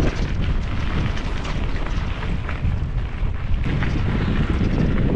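Wind buffeting the microphone of a camera on a moving gravel bike, a loud, steady low rumble, with the tyres rolling over the gravel road underneath.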